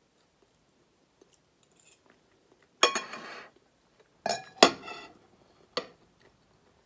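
Metal knife and fork clinking against a white ceramic plate: four sharp clinks in the second half, the first ringing briefly, the last as the knife is laid down on the plate.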